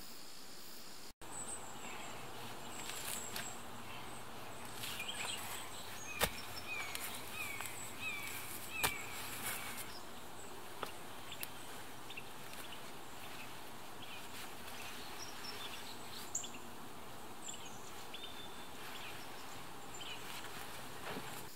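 Steady woodland background with a bird giving a short run of about five repeated chirps midway. A few sharp knocks come from stones being handled and set down in the dirt.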